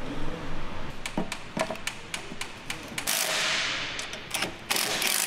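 A few metal clinks and taps as engine mount parts are handled, then a cordless impact wrench running in two short bursts, about three seconds in and again near the end, driving an engine mount bolt.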